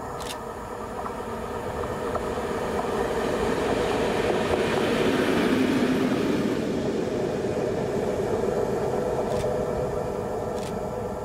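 PKP SM48 (TEM2) diesel-electric locomotive running light past, its engine and wheels on the rails. The sound grows louder to a peak about five seconds in, then fades as it moves away.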